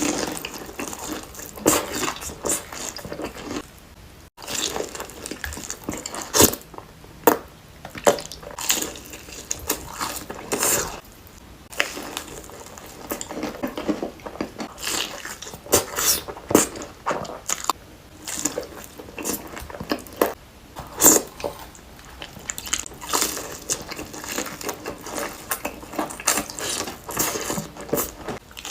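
Close-miked eating: irregular chewing and mouth smacks from a meal of fried chicken wings and spicy cheesy Buldak ramen, with a few louder clicks scattered throughout.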